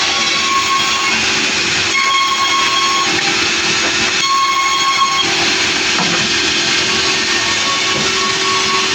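Sawmill running loud and steady: a low machine hum under a continuous hiss of sawing, with a high whine that rises out of it and fades four times.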